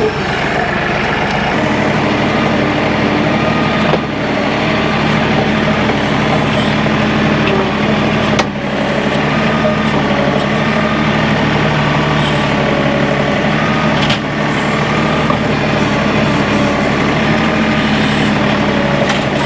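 Tractor engine running steadily, with a brief knock three times.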